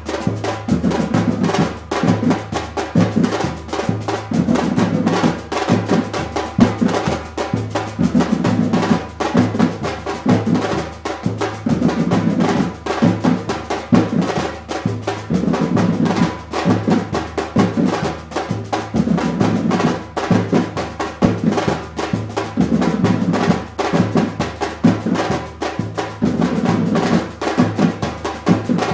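Brazilian percussion band drumming a steady, driving groove. Deep bass drums at several pitches sound under rapid snare hits.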